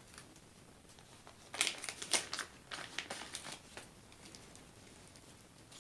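Packaging crinkling and rustling in short bursts as the contents of a diamond painting kit are handled and unwrapped, mostly between about a second and a half and four seconds in.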